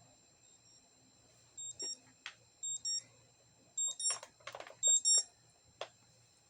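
Short high-pitched electronic beeps in four quick pairs, about a second apart, mixed with a few brief clicks and a short rattle.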